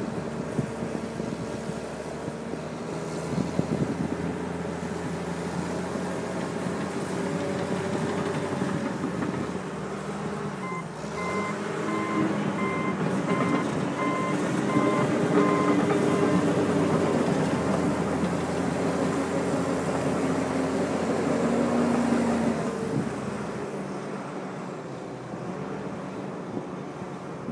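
John Deere 750J bulldozer's diesel engine running and working, getting louder through the middle and easing off near the end. Its backup alarm beeps steadily for about six seconds midway while the dozer reverses.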